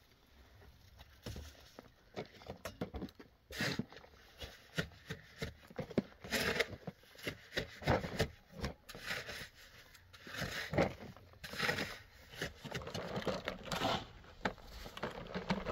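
Irregular scraping and crunching of sand and gravel, with several louder scrapes spread through.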